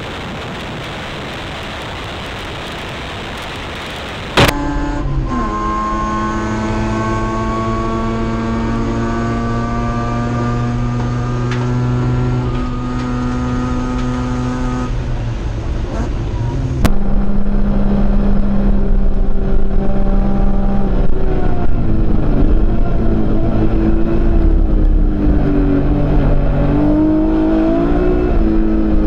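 Racing touring-car engines heard through onboard cameras, in three edited segments. First comes a steady rushing wind noise with no clear engine note. After a sharp click about four seconds in, one car's engine runs at a steady high pitch. From about two-thirds of the way through, another car's engine note wavers up and down as it goes through corners.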